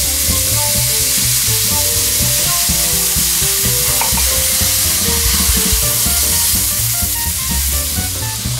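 Hot olive oil in an iron frying pan sizzling and spattering hard after a glass of water has gone into it, a steady loud hiss that eases slightly near the end. The spattering oil flares up into flames in the pan.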